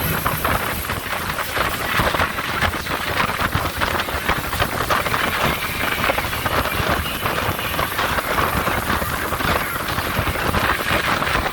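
Speedboat under way at speed: a steady, fluttering rush of engine, water and wind noise.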